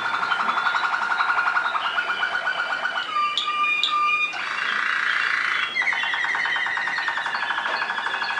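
Waterslager (Malinois) song canary singing without a break: fast rolling trills, with a pair of clear whistled notes about three seconds in, a rattling, water-like warble after them, and then another rolling trill that slowly falls in pitch.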